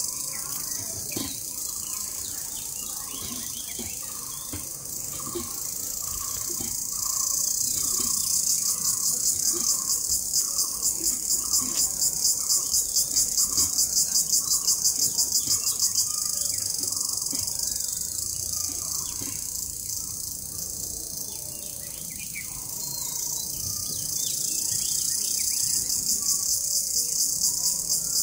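Insects trilling in a steady high-pitched outdoor chorus that swells into a fast, even pulsing in the middle and again near the end. A bird repeats a short note about twice a second through the first half.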